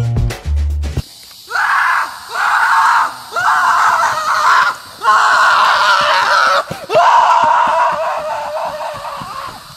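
A person screaming, six long high screams in a row, the last one trailing off. Music with a heavy bass beat plays for the first second, then cuts off.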